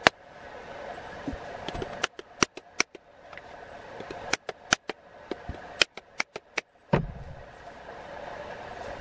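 Sharp knocks from hafting an axe head onto its wooden handle: rubber-mallet blows on the head and wooden knocks of the handle on the workbench, in irregular groups, with a heavier thud about seven seconds in. A faint steady hum lies underneath.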